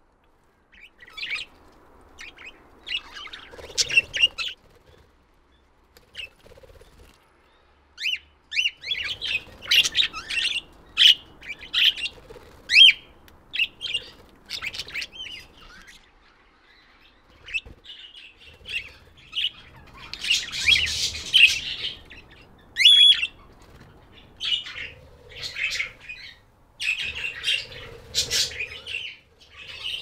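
Budgerigars chirping and chattering: many short high chirps with brief pauses, starting about a second in and growing busier after the first several seconds.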